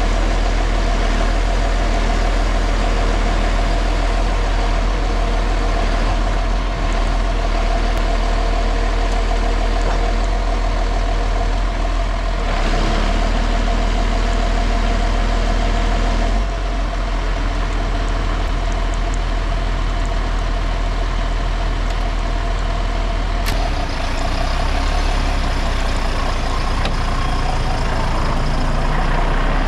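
Log truck's diesel engine running steadily, a loud deep drone with a steady hum above it; the drone shifts twice in the second half.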